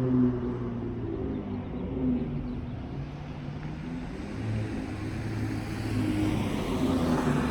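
Dodge Charger GT's 3.6-litre V6 exhaust through dual Flowmaster 40 Series mufflers at low speed. The engine eases off early on, runs low in the revs through the middle, then builds a little near the end.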